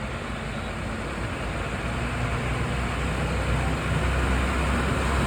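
A heavy road vehicle's engine running with a low hum over a steady rushing noise, growing louder as it comes closer.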